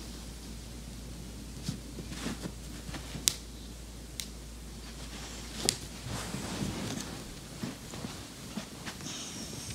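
A dog shifting and turning on a towel-covered couch before lying down: soft rustling of the towel and fabric with scattered small clicks and taps, the sharpest about three seconds in and again near six seconds. A low steady hum underneath fades out about six seconds in.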